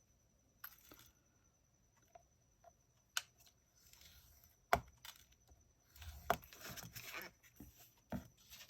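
Faint handling of cardstock on a small scoring board: scattered light clicks and taps, with two sharper taps a few seconds in, then paper rustling with quick ticks near the end.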